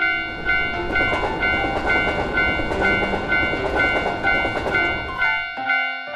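Japanese railroad crossing bell ringing its steady "kan-kan", a little over two strikes a second, while a train rumbles through the crossing; the train noise ends about five and a half seconds in, the bell keeps ringing.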